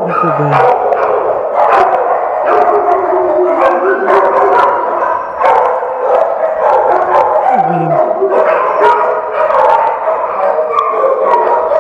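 Many kenneled shelter dogs barking and howling at once, a loud, unbroken din of overlapping barks and howls.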